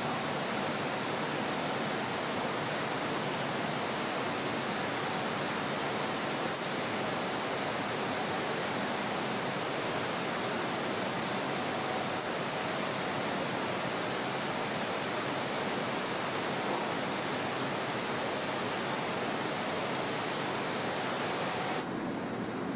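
Steady hiss-like noise with no clear pitch or rhythm. Its upper part drops slightly near the end.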